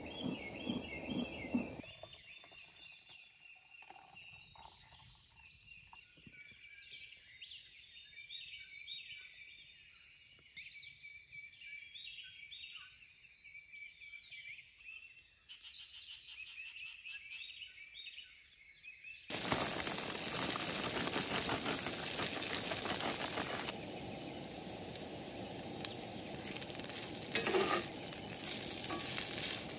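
Songbirds chirping and singing. About two-thirds of the way in, this cuts to food frying with a loud, steady sizzle.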